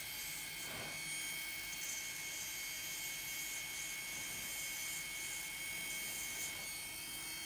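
Electric nail drill (e-file) running steadily with a high-pitched whine, its small bit working along the cuticle and nail folds to lift the cuticle from the nail plate.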